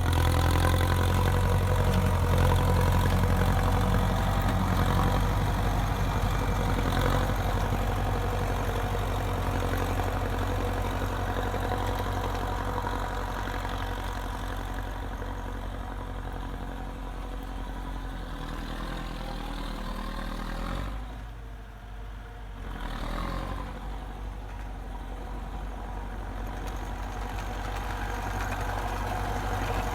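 DT-75 crawler tractor's diesel engine running steadily. It grows gradually quieter, dips briefly about two-thirds of the way through, then comes back up.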